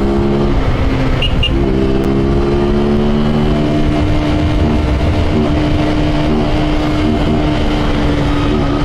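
Honda Titan 150 single-cylinder four-stroke engine, carbureted and running with no air filter or intake hose, pulling on the road. Its pitch dips and breaks about half a second in, then holds steady with a slight climb and drops near the end as the throttle eases. Heavy wind rumble on the microphone underneath.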